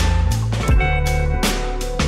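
Instrumental background music with a steady drum beat and a bass line.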